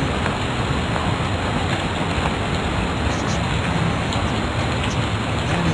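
Steady, even hiss of noise with no change in level, like static in the recording.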